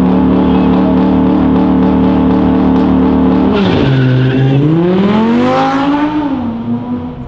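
Audi R8 engine running at high revs with a steady, even pitch, then a sharp drop in pitch about three and a half seconds in, typical of an upshift. It revs up again under hard acceleration, and the pitch falls as the car passes by.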